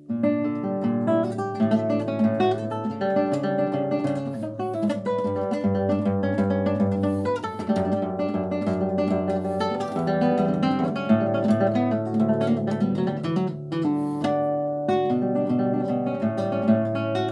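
Solo classical guitar playing a fast passage of plucked notes and strummed chords. A new phrase starts sharply right at the beginning, after a held chord has died away.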